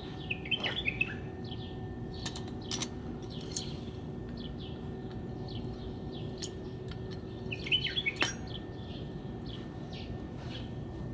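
Birds chirping, in short bursts that are busiest about half a second in and again about eight seconds in, over a faint steady hum. A few sharp metallic clicks come from wrenches and brake caliper parts being picked up and set down on concrete.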